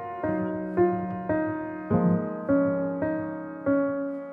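Background music: a piano-like keyboard melody of single struck notes, about two a second, each fading after it is struck.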